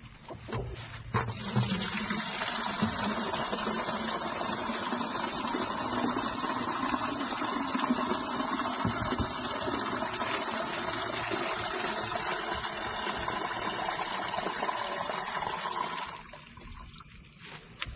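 Water gushing steadily into a bucket as it is filled, starting about a second in and cutting off shortly before the end.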